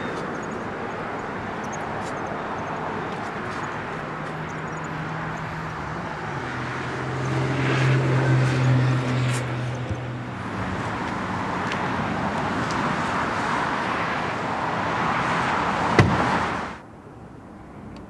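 Outdoor road-traffic noise, with a vehicle passing and its low engine hum swelling about seven to ten seconds in. A single sharp click comes near the end, and then the sound drops away suddenly.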